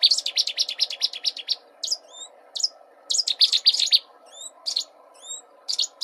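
Cetti's warbler song: loud, explosive bursts of rapidly repeated sharp notes, one burst at the start and another about three seconds in, with a short phrase near the end and single sweeping notes in the gaps.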